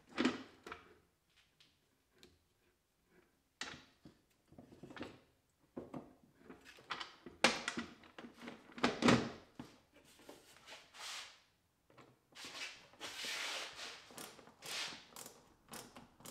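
Irregular knocks, clicks and plastic clunks as an air filter is dropped into its housing and the housing cover and screws are refitted by hand, with a longer scraping, rustling stretch about three-quarters of the way through.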